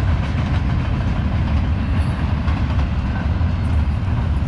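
Train passing, a steady heavy rumble.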